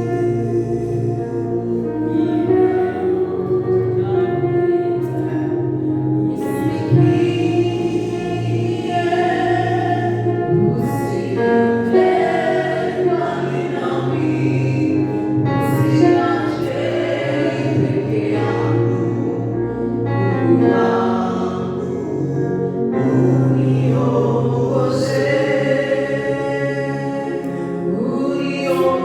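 Worship music: a congregation or choir singing a slow gospel song over sustained keyboard chords.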